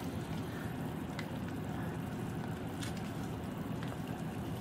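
Fermented bean paste sauce with oil simmering in a small pan, a steady bubbling sizzle with a few faint pops.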